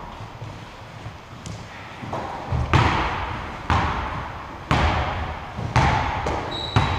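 A basketball is dribbled on a gym floor: about five thuds roughly a second apart, starting about two and a half seconds in, each echoing in the hall.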